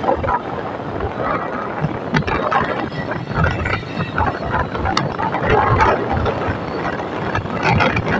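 Ride noise of a vehicle moving along a road: steady road and wind noise with frequent irregular rattles and knocks.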